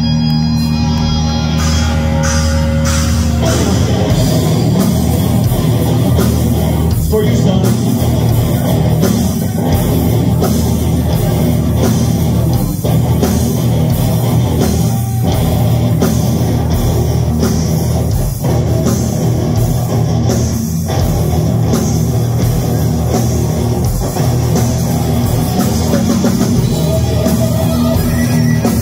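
Live heavy metal band playing loud with distorted electric guitar and drum kit. A held chord rings for about the first three seconds, then the full band plays hard and fast.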